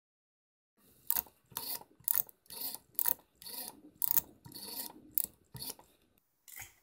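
Black rotary-dial desk telephone being dialled: the dial is turned and ratchets back, digit after digit, in a run of short whirring bursts about twice a second, starting about a second in.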